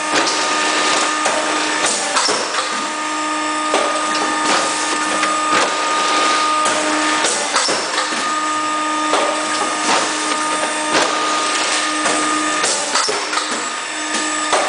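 Cake-box label applicator machine running: a steady motor whine with a sharp mechanical clack repeating about once a second as it cycles.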